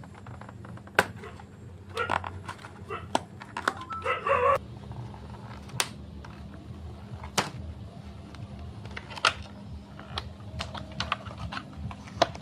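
Chocolate bar wrappers and packaging being handled and opened: scattered sharp clicks and taps, with short bursts of crinkling plastic about two seconds in and again around four seconds, over a steady low hum.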